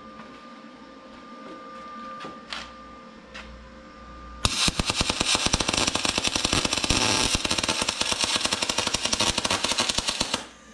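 MIG welder running solid wire: after a few faint clicks, the arc strikes about four and a half seconds in and crackles and pops steadily for about six seconds, then stops. The popping is uneven because the steel was not cleaned before welding.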